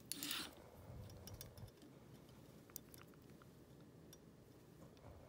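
Near silence: quiet room tone, with a short rustle right at the start and a few faint small clicks from hands and tools at work.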